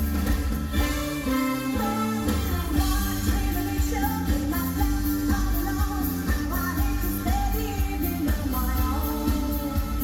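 Live pop music: a female singer with a backing band.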